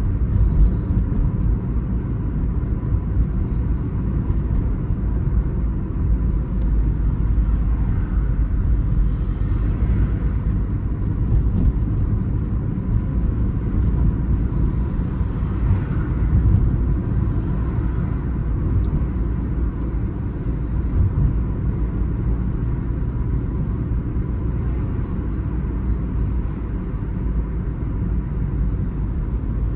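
Opel Astra H driving along, a steady rumble of engine and tyre noise with no marked changes in speed.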